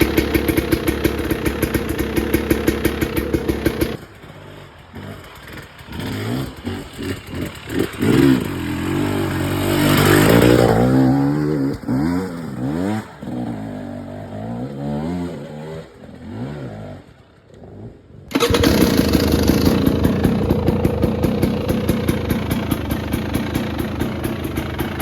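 2022 KTM 300 XC-W single-cylinder two-stroke dirt bike engine running on its stock exhaust with a rapid popping beat. It cuts off suddenly about 4 seconds in, then a quieter passage follows with the revs rising and falling. Loud running resumes near 18 seconds.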